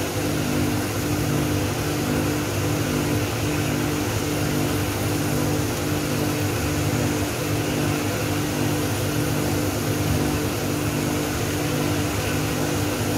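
Coffee roaster's cooling tray running, its rotating stirring arms sweeping freshly roasted peaberry beans round: a steady machine hum with an even hiss of moving beans and air. This is the cooling stage at the end of the roast.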